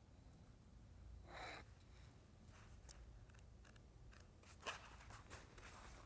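Faint rustling of paper pages being leafed through by hand: one soft rustle about a second and a half in, then a scatter of small paper clicks and rustles over quiet room tone.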